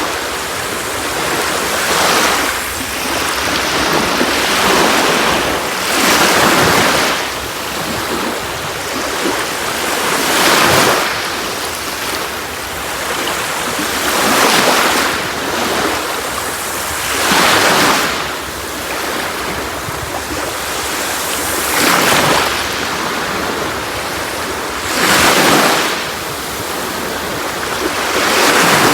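Sea waves breaking on a shore, a steady hiss of surf that swells into a wash roughly every three to four seconds, about eight waves in all.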